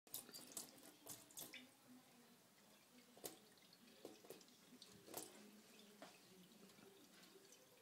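Faint thin stream of water from a kitchen tap running into a stainless steel sink, with irregular small splashes and drips as a kitten paws at the stream.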